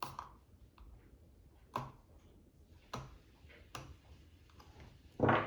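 A few sharp clicks and fainter ticks as an X-Acto craft knife works at a squishy toy's skin, then a louder scuffing rustle near the end.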